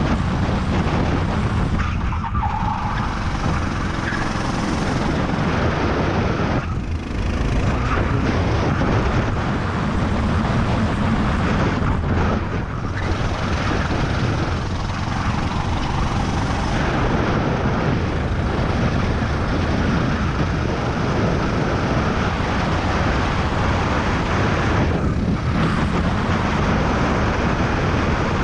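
Go-kart engine running hard under the driver, mixed with heavy wind rush on the onboard microphone at speed; the sound eases briefly a few times, as the kart slows for corners, then picks up again.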